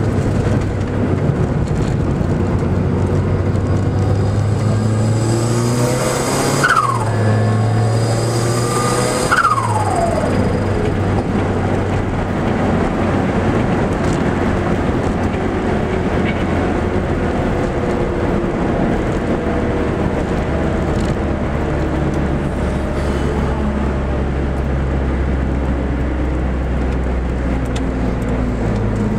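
Car engine heard from inside the cabin while lapping a race track, pulling hard with the revs dropping sharply a few times in the first ten seconds as gears change or the driver lifts. After that it runs at a lower, steadier pitch.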